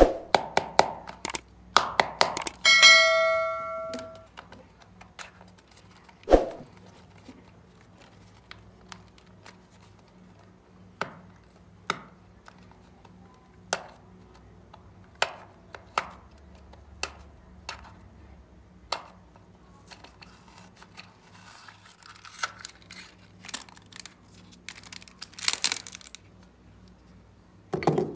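Hard plastic clicks and knocks as a lime-green plastic candy container is handled and opened, one every second or two, with a single ringing ping about three seconds in. Near the end a candy wrapper crinkles.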